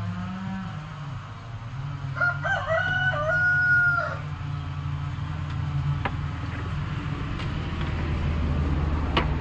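A rooster crowing once, about two seconds in: a few short notes and then a long held final note. A steady low hum runs underneath.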